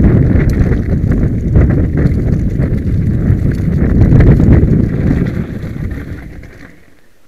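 Mountain bike rattling down a rocky trail: tyres crunching and clattering over loose stones, with wind buffeting the microphone. The noise dies away over the last two seconds as the bike slows to a stop.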